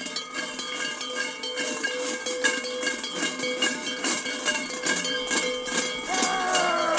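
Large Krampus costume bells clanging continuously as their wearers walk, with a steady ringing and repeated irregular strikes. Falling tones slide down near the end.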